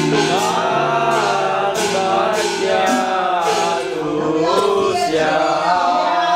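Music with a male voice singing or chanting in long, wavering phrases over held low notes, with a few struck percussion hits.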